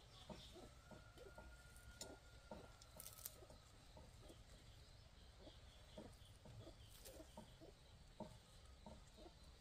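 Chickens clucking faintly, a run of short, irregular soft clucks.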